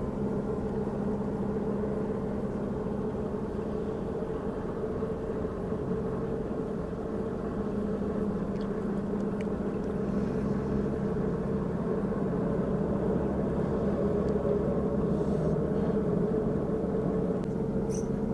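Steady low engine hum with a few fixed tones, holding unchanged throughout.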